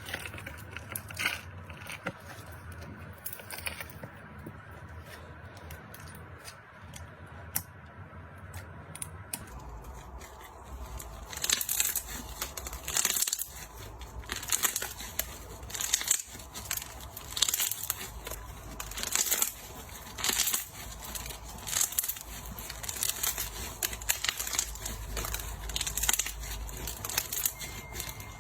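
Crunchy slime being squeezed and pressed, crackling and popping in quick irregular bursts. It is quieter at first, then the crunching gets louder and denser about a third of the way in.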